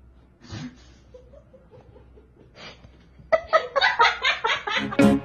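A person laughing in a quick run of loud ha-ha pulses, about six a second, starting about three seconds in after a quiet stretch with a couple of faint snickers.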